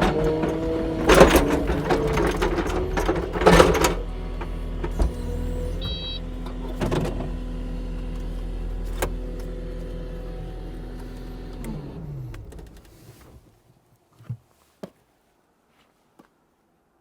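Kubota SSV65 skid steer's diesel engine running, with two loud clanks in the first few seconds; about twelve seconds in it is switched off and winds down with falling pitch to a stop. A few light knocks follow.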